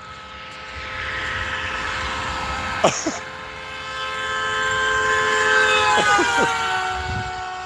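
A car horn held in one long blast as the car drives past over the rush of its tyres. The chord drops in pitch as the car goes by and then fades.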